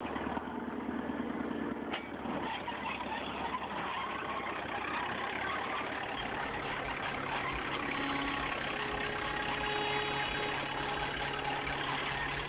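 International TD-14 crawler tractor's diesel engine running steadily.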